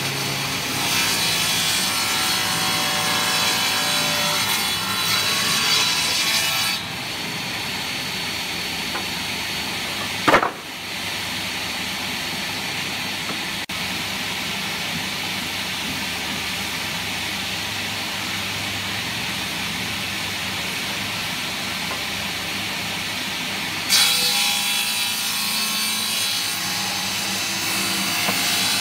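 Table saw ripping a thick rough-sawn wood slab: a dense, steady cutting noise. About seven seconds in it drops to a quieter, even running sound. There is a brief high squeak about ten seconds in, and the louder cutting returns about four seconds before the end.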